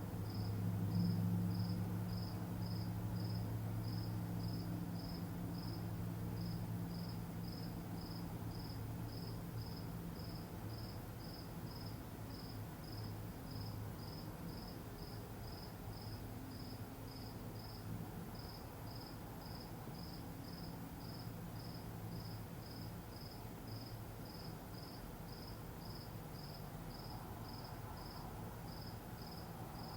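A cricket chirping steadily in short high chirps, about two a second, over a low hum that eases off somewhat after the first half.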